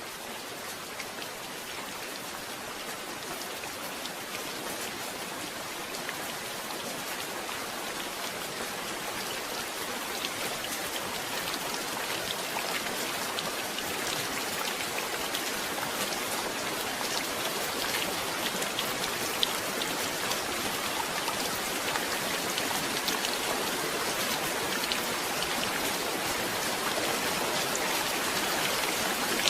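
Steady rain falling, with many individual drop hits ticking against a surface. It grows gradually louder.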